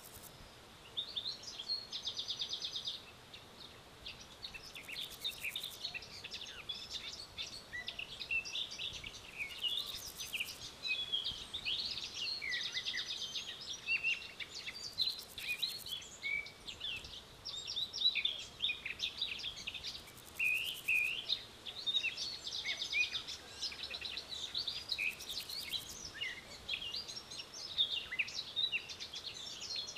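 Many small birds chirping and singing together, with many short chirps and a few quick trills, plus a faint high buzz that comes back about every five seconds.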